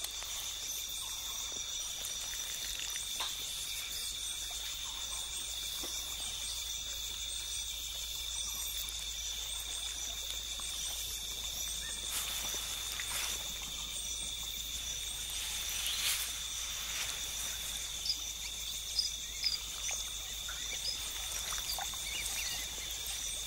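Night ambience of insects trilling steadily at a high pitch, with scattered faint clicks and taps that become more frequent in the second half.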